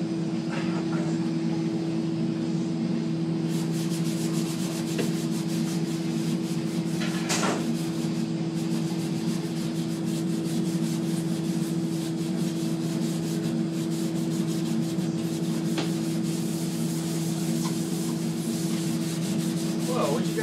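Blue scouring pad scrubbed fast back and forth on a stainless steel backsplash, taking off baked-on grease and carbon: a rapid rasping rub that starts a few seconds in. Under it runs a steady low machine hum.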